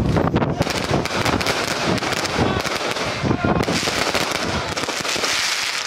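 Electronically fired fireworks going off in a dense, continuous string of sharp cracks and bangs.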